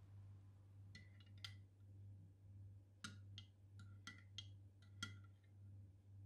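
Metal teaspoon clinking lightly against a glass mug of clove-and-linseed drink, about ten faint clinks: a few about a second in, then a quicker run in the second half.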